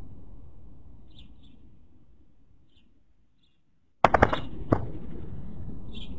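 Spotted doves' wings flapping and clapping in a sudden rapid burst of sharp claps about four seconds in, with one more clap just after, as two doves scuffle close to the microphone. Before it there are a few faint, short chirps from a small bird.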